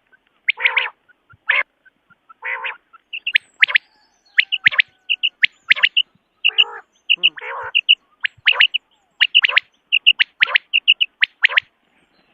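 Common quail calling: quick groups of two or three short, high notes, broken by a few lower, buzzier calls each under a second long.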